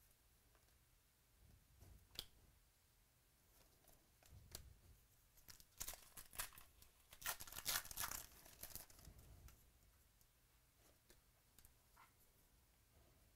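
Trading cards and their plastic or foil packaging handled close by: a few soft clicks, then a stretch of rustling from about six to nine seconds in.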